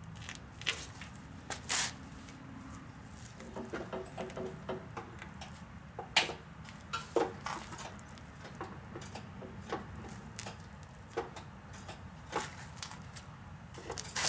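Irregular light clicks, knocks and rustles of hands working on a go-kart beside its engine, with a faint steady hum underneath.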